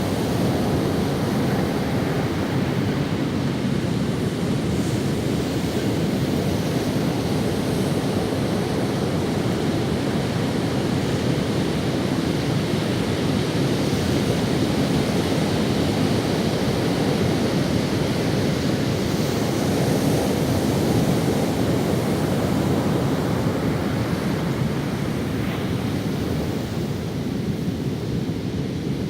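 Ocean waves washing up on a sandy beach: a continuous surf rush with slow swells, and some wind on the microphone.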